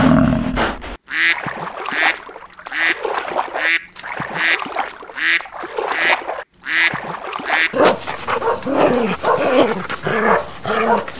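Domestic geese honking, short calls about once a second, after the tail of a water buffalo's low moo at the very start; from about eight seconds in, Samoyed dogs yipping and whining.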